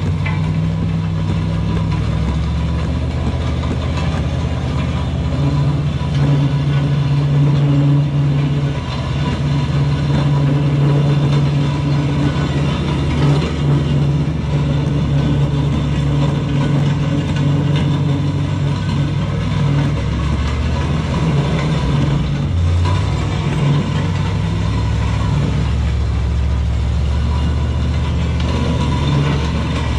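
Pickup truck engine running steadily at low speed under load while towing a heavy steel land plane over a dirt road, its note strengthening slightly about six seconds in, over a steady haze of road and dragging noise.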